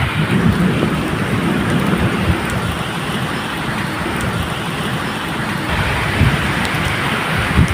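Steady medium rain falling, with low thunder rumbling irregularly underneath and a few sharp drop ticks.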